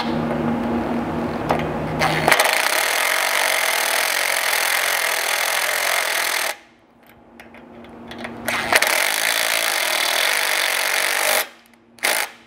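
Cordless impact driver with a 1/2-inch socket tightening the flange nylock nuts on a roof-rack mount bracket. It runs the nut down for about two seconds, then hammers as the nut seats until about six seconds in. After a short pause it hammers again for about two and a half seconds, then gives a brief last burst.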